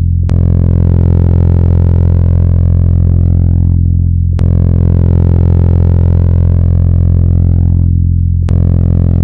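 Sound converted from a star's vibrations: a loud, steady, deep hum with many overtones. A sharp click comes about every four seconds.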